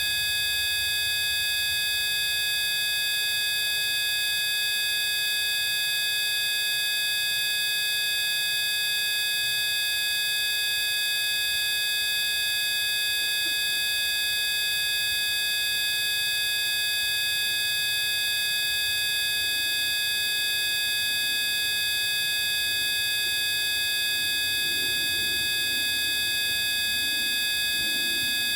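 Several steady pure electronic tones sounding together at fixed pitches, low to very high, unchanging throughout, like a sine-tone frequency-therapy track.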